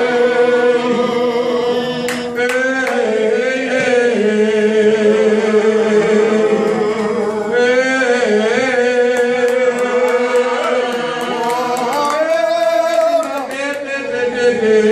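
A man singing a worship song into a handheld microphone, amplified, his voice holding long notes and sliding between them.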